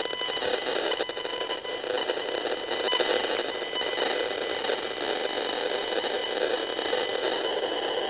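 Safe and Sound Pro II broadband RF meter's speaker sounding the microwave signals it picks up: a steady high-pitched whine with several fixed tones over a crackling buzz. Its owner takes the signal for radiation from a distant cell tower.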